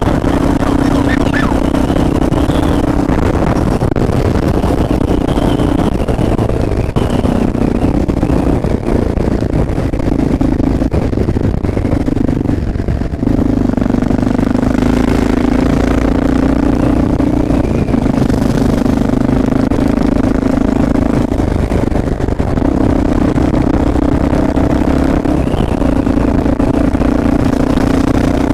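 Honda XR650L's single-cylinder engine running while the motorcycle is ridden in traffic, with a loud steady drone that breaks off and returns several times.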